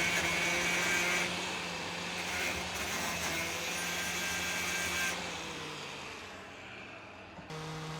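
An electric power tool motor running steadily with a low hum, quieter after about five seconds, cut off abruptly near the end.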